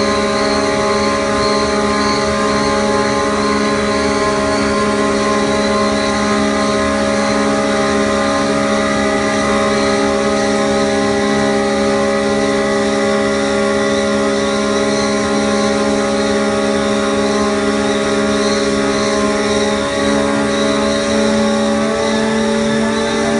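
Double-wall corrugated board production line running: a loud, steady machine drone with several steady whining tones over a noisy rush, shifting slightly in pitch about twenty seconds in.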